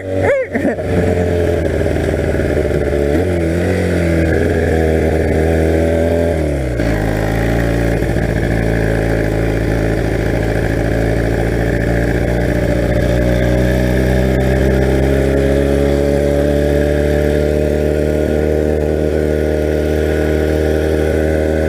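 1982 Honda motorcycle engine running under way, heard from the rider's position. The revs dip and fall off a few seconds in, then settle into a steady pull that slowly rises.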